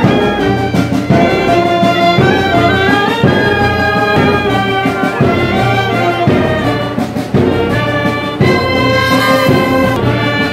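A brass band playing a tune live, with held notes changing in a steady rhythm.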